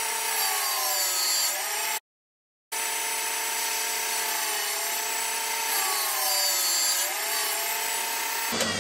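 Thor valve refacing grinder running, its stone grinding the stem tip of an 8N Ford exhaust valve to shorten it by a few thousandths of an inch. A steady whine whose pitch dips twice as the valve is fed across the stone, cut off for under a second about two seconds in.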